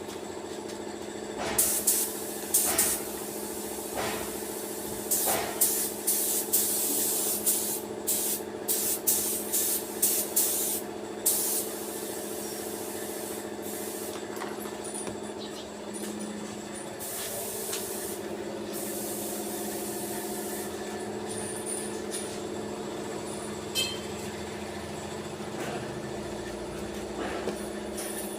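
Short, repeated bursts of spraying hiss, about a dozen in the first twelve seconds and a longer one a little past the middle, over a steady low hum.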